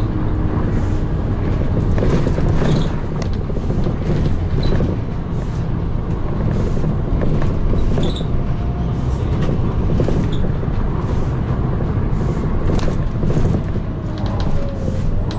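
London bus heard from on board, its engine running with a steady low drone and road noise, with scattered clicks and rattles from the bodywork.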